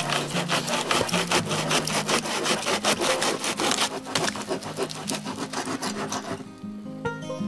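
Hand pruning saw cutting through a wooden log in quick, steady back-and-forth strokes, stopping about six seconds in. Soft background music runs beneath and carries on alone after the sawing stops.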